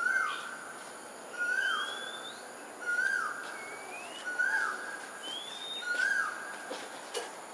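Birds calling: one bird repeats a short whistled note with a falling tail about every one and a half seconds, and a higher, thinner rising whistle comes in between. A steady high-pitched hiss runs underneath.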